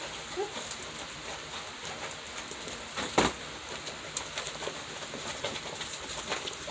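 Electric fan running steadily, with scattered small clicks and crackles and one sharper knock about three seconds in.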